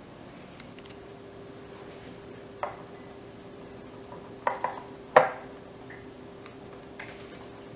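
Glass mason jar clinking and knocking as shredded red cabbage is packed into it by hand. There are a few sharp knocks: one under three seconds in, a quick pair around four and a half seconds, the loudest just after five seconds, and a lighter one near the end.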